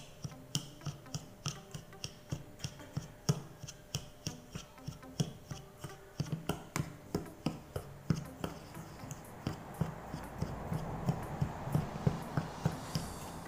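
Metal spoon stirring dry powder in a small ceramic bowl, clinking against the bowl about twice a second, with a rougher scraping from about ten seconds in.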